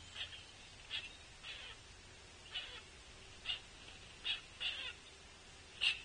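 Juvenile pileated woodpecker begging: short, hoarse calls repeated at irregular intervals, about eight in six seconds, the loudest near the end.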